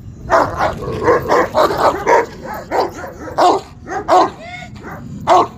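A Kohati Gultair dog barking repeatedly in short, uneven bursts, about a dozen barks in quick succession.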